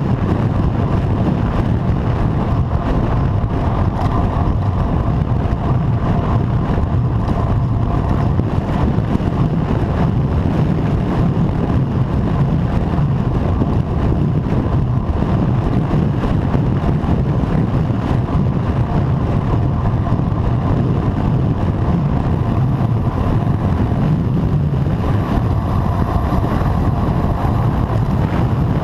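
Steady wind rumble on a seatpost-mounted GoPro Hero3 as a road bike rides at about 45 km/h, a constant low rush.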